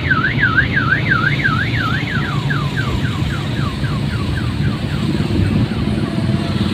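Electronic vehicle alarm sounding: a fast rising-and-falling warble, about two and a half cycles a second, switches about two seconds in to a run of quick falling chirps that fade out by about five seconds in. A low engine rumble sits underneath.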